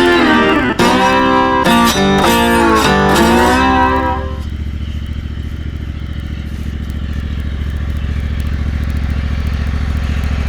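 Guitar music for about the first four seconds, then the Dixie Chopper zero-turn mower's engine running steadily on its own, slowly getting louder.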